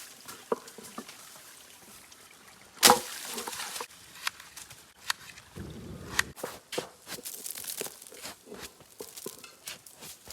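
Dry sticks and twigs being snapped and handled while firewood is gathered: irregular cracks and rustles, the loudest snap about three seconds in.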